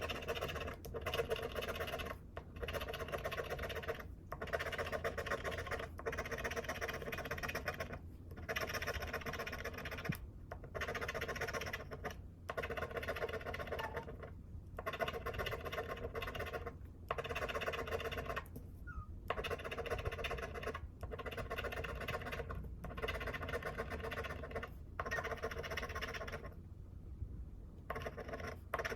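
Scratching the coating off a paper lottery scratch-off ticket: a long run of scrubbing strokes, each a second or two long with brief pauses between, over a steady low hum.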